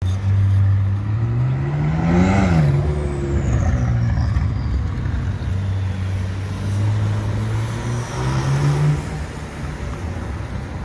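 McLaren supercar's twin-turbo V8 running at low revs, with a quick rev that rises and falls about two seconds in and another brief rise in pitch near nine seconds.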